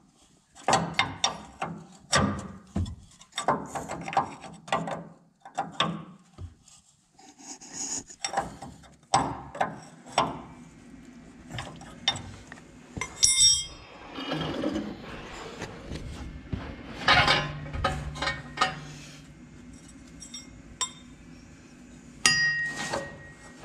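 A wrench clicking and clinking on the torsion-bar adjuster's jam nut of a 1989 Toyota pickup as the nut is locked down, in quick irregular strokes. This is followed by scattered metal clinks and knocks from tool handling, with one sharper ringing clink about halfway through.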